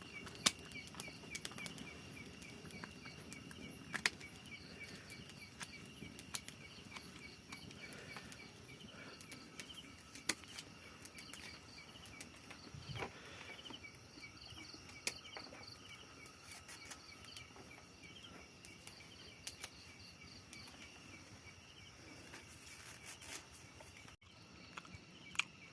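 Insects chirping in rapid, evenly repeated pulses, with scattered sharp clicks and light rustling; the loudest clicks come about half a second in and about four seconds in.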